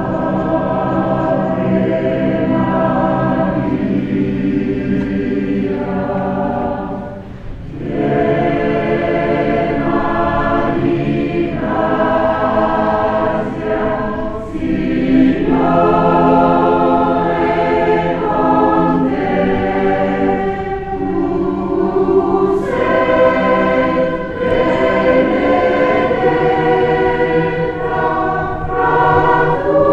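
Mixed choir of men's and women's voices singing in parts, with a short break between phrases about seven seconds in.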